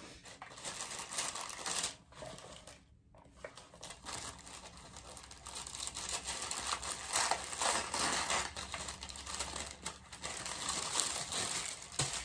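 Packaging crinkling and tearing with irregular crackling as an eyeshadow palette is unwrapped by hand, with a short pause about three seconds in.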